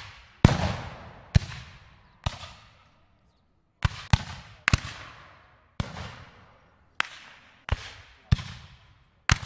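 Rifle shots fired one after another at irregular intervals, about eleven of them, each sharp crack trailing off in a long echo lasting about a second.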